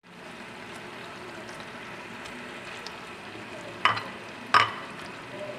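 Chicken adobo sizzling steadily in its soy-vinegar sauce in a pan, with two sharp knocks a little under a second apart just past the middle as sliced red onions are dropped in.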